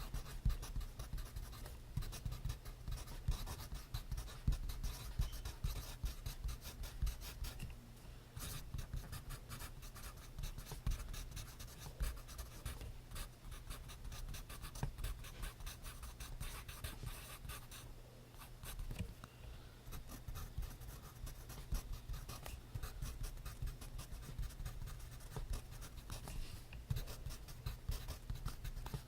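Pencil writing on notebook paper: continuous quick scratching strokes, briefly easing off about 8 seconds in and again about 19 seconds in.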